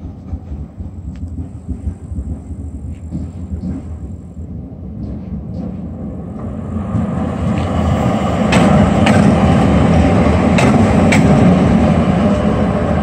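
PKP Intercity SU160 diesel locomotive passing close by. Its engine rumble grows much louder from about halfway through, and the wheels give a few sharp clicks over the rail joints. Before that, a quieter rumble of passenger coaches rolling away.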